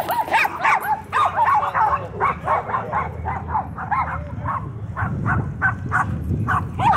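Small dogs yapping in quick succession, short high barks several a second with hardly a break, as they run along a chain-link fence.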